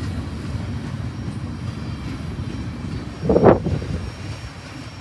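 Double-stack container train rolling past, a steady low rumble of wheels on rail that grows quieter as the end of the train goes by. A short, loud noise stands out about three and a half seconds in.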